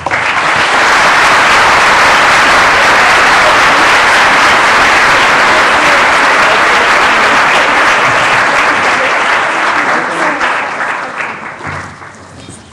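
Audience applauding, loud and steady, then dying away over the last two or three seconds.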